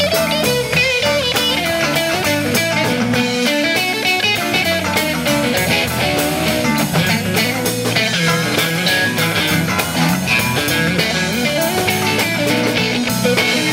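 Live band playing: electric guitars over bass guitar and a Ludwig drum kit, with a steady beat throughout.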